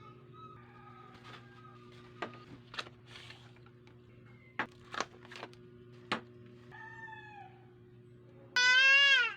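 An animal's call, loud and pitched, rising then falling, near the end, with a shorter, fainter falling call a little before it. Scattered sharp clicks or taps over a steady low hum.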